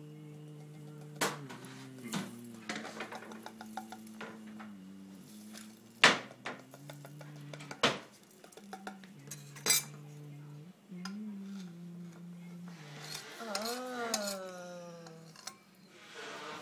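Ceramic plates clinking and knocking together as they are handled and stacked, with several sharp clinks spread through. Underneath runs a low tune held in steady notes that change in steps.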